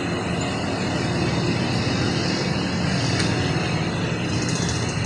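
Steady mechanical drone with a low hum and a hiss above it, holding at an even level.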